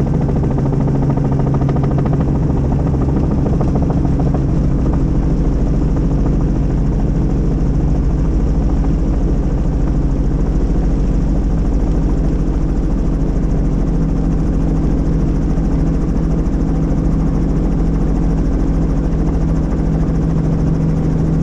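Helicopter in flight: a steady engine and rotor drone with several constant hum tones over a fast, even blade chop, holding level throughout.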